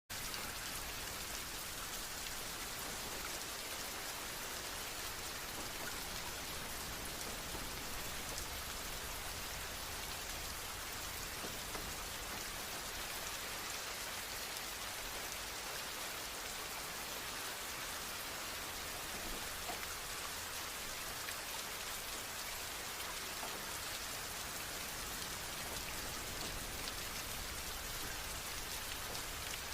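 Steady rain falling: an even, continuous hiss with fine scattered drop ticks.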